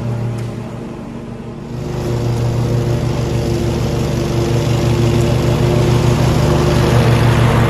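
Cub Cadet XT2 lawn tractor engine running steadily while mowing with its freshly belted 50-inch deck. It grows louder about two seconds in and then holds steady.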